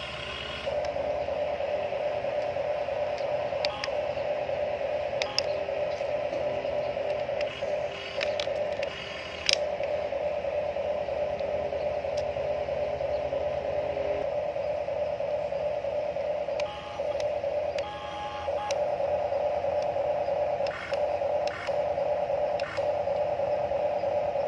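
Huina RC toy excavator's small electric gear motors whining steadily as the boom, arm and tracks are worked, breaking off briefly several times between moves, with a few light clicks.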